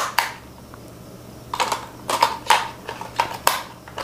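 A run of sharp plastic clicks and knocks as AA batteries are pressed into the spring contacts of a toy RC car's battery compartment and the plastic compartment cover is snapped shut.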